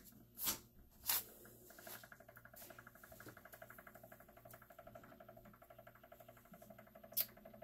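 Cup turner motor switched on and running, slowly turning a tumbler on a PVC pipe. About two seconds in, a faint steady whir with a rapid, squeaky chirping sets in, described as "cute noises". A couple of light knocks come just before it.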